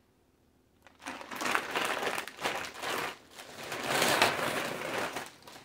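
Plastic shopping bag rustling and crinkling as it is handled, starting about a second in.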